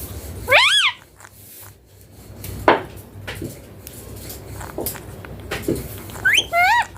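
Indian ringneck parakeet giving a short, sharp whistled squawk that rises and falls, then two quicker squawks near the end, with a sharp knock and a few light clicks in between.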